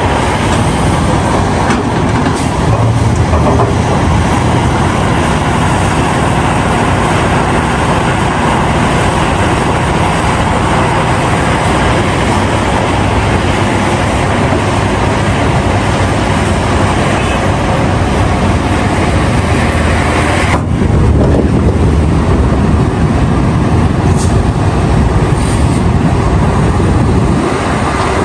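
Caterpillar 352F hydraulic excavator's diesel engine running under load, a steady heavy mechanical rumble. About twenty seconds in the sound changes abruptly, the hiss dropping away and the low rumble growing stronger.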